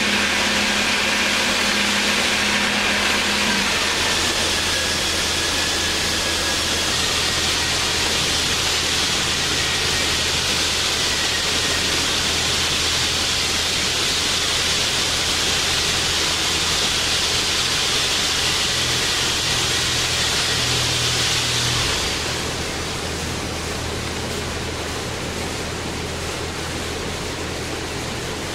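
Baileigh PL-1022VS variable-speed bench lathe running, a steady motor hum under a broad hiss. About three-quarters of the way through the sound drops off a little and the hiss thins, leaving a steadier, quieter hiss.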